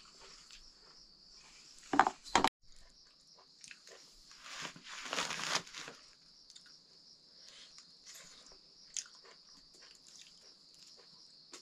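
Eating by hand from a steel plate: chewing, with fingers mixing food against the plate and small clicks. There are two sharp knocks about two seconds in and a louder rustling stretch around the middle. A steady high insect chirping runs underneath.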